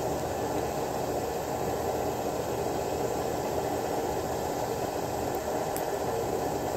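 Steady background hiss with no distinct clicks or knocks.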